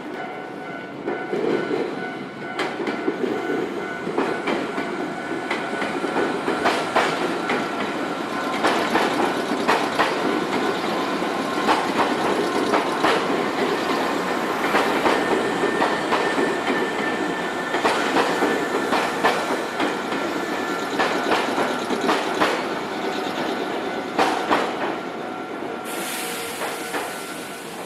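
A JR Kisei Main Line train passing over a level crossing, its wheels giving repeated clacks over the rail joints above a steady rumble. Steady tones from the crossing's warning signal ring along with it.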